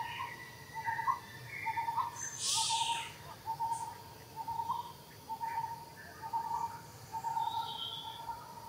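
An animal's short, pitched calls repeated about one and a half times a second, with a brief hissing sound about two and a half seconds in.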